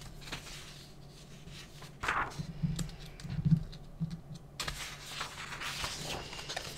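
Sheets of paper being handled and swapped on a desk: rustling and sliding, a short burst about two seconds in and a longer stretch from about four and a half seconds, over a low steady hum.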